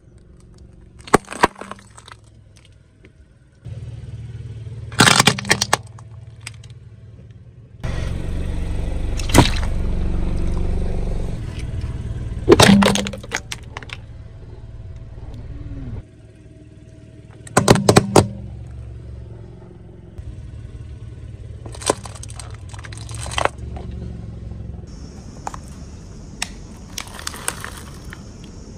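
Small coloured light bulbs cracking and popping one after another as a car's tyre rolls over them on asphalt, over the low rumble of the car creeping forward. There are about six sharp cracks. Near the end, a steady rattling hiss as hard candies are tipped out of a plastic cup onto concrete.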